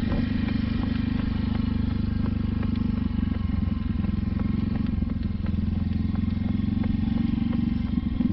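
Small motorcycle engine running steadily at low speed: an even, low drone with a fast regular pulse.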